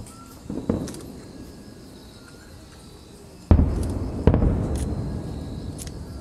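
Fireworks going off: a small pop near the start, then two loud booms a little past halfway, less than a second apart, each followed by a long rumbling echo. Crickets chirp steadily underneath.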